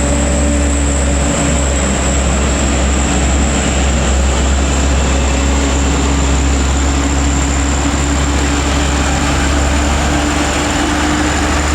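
Heavy road vehicle's engine running steadily: a loud, even low drone with a few steady tones, which neither rises nor falls.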